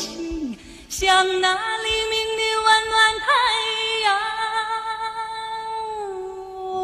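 Female singer holding long, drawn-out notes in a Mandarin pop ballad, with a slight waver in the pitch and sparse accompaniment without bass. The music drops briefly just before the voice comes in, about a second in.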